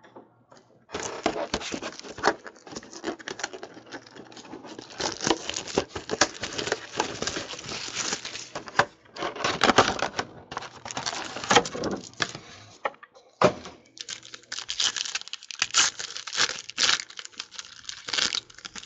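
Plastic and foil wrappers of football trading-card packs crinkling and tearing as they are opened by hand, a dense crackle with a short pause about two-thirds of the way through.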